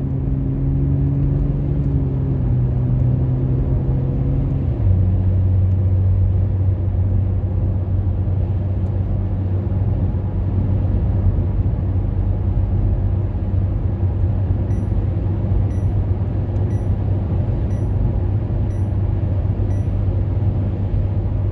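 Car engine and tyre rumble heard from inside the cabin at open-road speed, steady and low, with the engine note dropping to a lower pitch about five seconds in. Faint high ticks come about once a second near the end.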